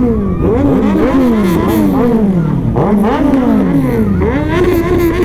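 Several superbike engines with loud exhausts revving in repeated throttle blips, each rising quickly and falling away more slowly, about once a second, overlapping with one another.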